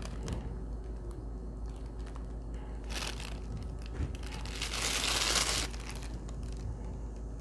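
Clear plastic bag crinkling as slices of prosciutto are pulled out of it, with a short burst about three seconds in and a longer, louder one around five seconds.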